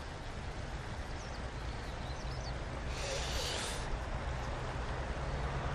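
Steady low outdoor rumble with a few faint high chirps, and a short hiss about three seconds in.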